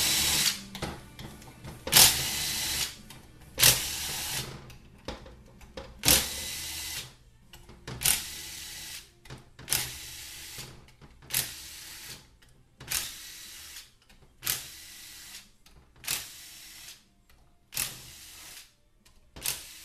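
Power tool spinning out the 7 mm valve body bolts in short trigger pulls: about a dozen runs, each under a second, one every one and a half to two seconds.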